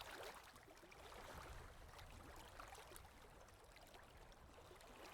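Near silence: the faint, steady rush of flowing river water.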